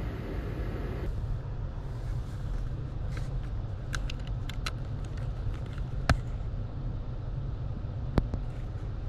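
Steady low rumble of road vehicles, with a scatter of small clicks and two sharp clicks at about six and eight seconds in.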